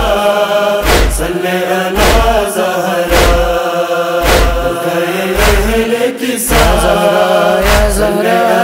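A wordless vocal chorus sings a sustained, slow chant-like line in a Shia noha, over a deep thudding beat that falls about once a second.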